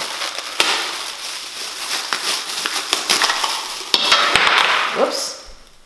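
Thin plastic packaging bag crinkling and rustling as a plastic rice paddle and soup spoon are pulled out and unwrapped by hand, full of small crackles, dying away near the end.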